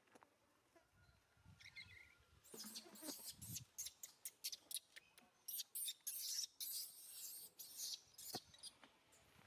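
Baby monkey squealing in a rapid run of faint, very high-pitched cries, starting about two and a half seconds in and dying away near the end.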